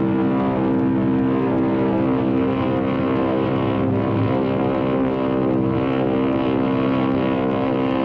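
An ocean liner's horn sounding one long, steady blast at a constant pitch, rich in overtones.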